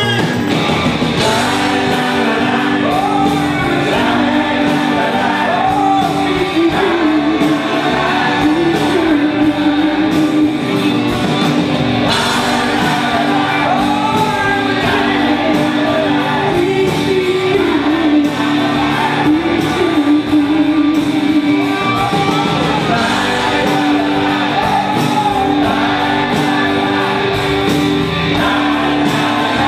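Live band playing a pop-rock song: a man sings the lead into a microphone over bass guitar, drum kit and keyboards, with the reverberation of a large hall.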